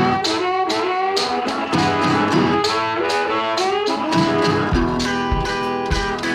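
Background music: a guitar-led country-style tune with a steady beat.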